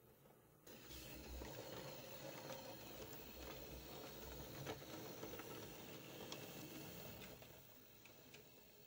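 An OO gauge model tank locomotive running along the track with a coach, its small electric motor and wheels making a faint, steady whirr with light clicks over the rail joints and points. The sound comes in suddenly shortly after the start and dies away near the end.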